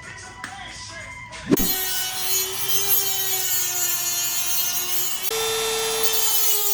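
A power tool starts about a second and a half in and runs steadily with a whine, its pitch stepping slightly higher near the end.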